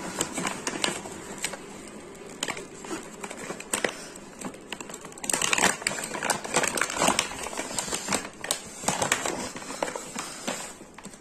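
Plastic dog-chew pouch crinkling and rustling as a hand reaches in and handles it, with irregular sharp crackles that grow busier about halfway through.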